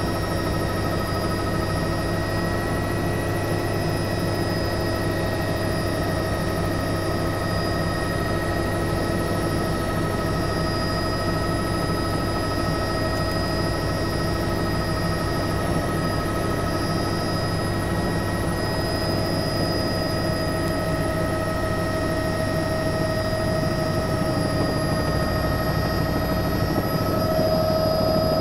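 Bell 206 JetRanger helicopter heard from inside its cabin: steady rotor and engine noise with a high turbine whine, during the approach to land. It grows somewhat louder over the last few seconds.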